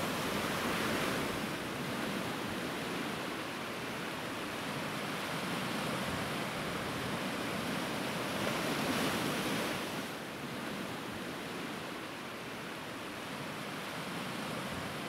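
Sea surf washing with wind: a steady rushing noise that swells near the start and again around eight to ten seconds, then eases a little.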